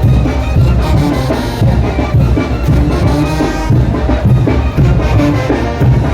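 A Mexican brass band (banda) playing a son de chinelo, the carnival dance tune: brass carries the melody over a steady, driving drum beat.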